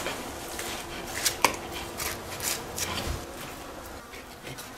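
Knife boning out a deer's front shoulder on a butchering table: a few scattered sharp clicks and taps as the blade and the meat knock against the table.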